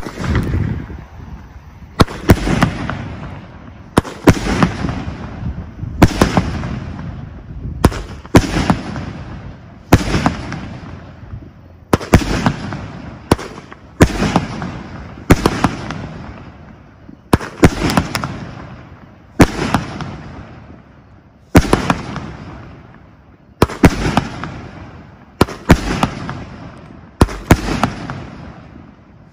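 A 25-shot consumer firework cake firing its shots one after another. Each is a sharp loud bang that trails off, coming about every one and a half to two seconds, sometimes two in quick succession.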